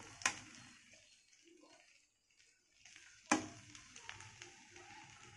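Metal slotted spatula knocking and scraping against the kadai as cooked tomato rice is stirred: a light knock at the start, a near-silent stretch, then a sharper knock about three seconds in, followed by faint scrapes and taps.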